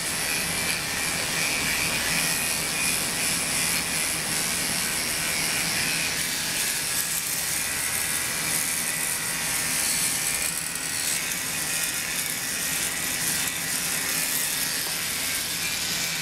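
Electric dog-grooming clippers running with a steady buzz as they blend through the hair of a dog's coat around the head and ear.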